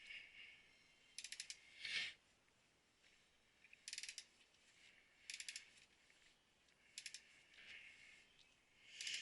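Faint clusters of several rapid mechanical clicks, repeating about every one and a half to two seconds, with softer rasping swells between them.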